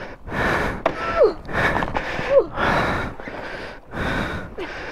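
A person panting hard, about seven deep breaths in and out in quick succession, a few with a short falling vocal sound: out of breath after the heavy exertion of lifting a fallen motorcycle.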